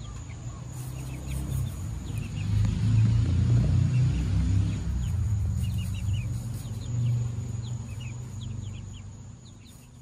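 A low rumble that swells and then fades away near the end, with young chickens peeping faintly over it.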